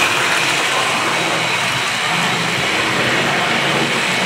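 Several Hornby/Tri-ang OO gauge model trains running round the layout together: a steady mechanical hum of their small electric motors and wheels on the track.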